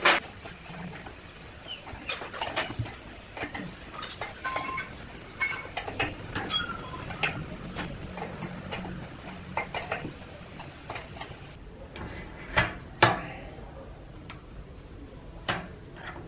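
Irregular metal clinks, clicks and knocks from a wood lathe's chuck being tightened with a chuck key onto a heavy bark-covered log, with the tailstock brought up against it. There are two louder knocks a little past the middle and another near the end.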